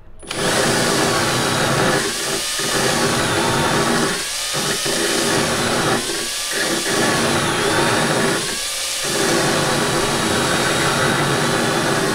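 Power drill spinning a diamond-tipped rotary thread repair cutter against a bolt's damaged threads. It starts just after the beginning and runs steadily, with four brief dips about every two seconds.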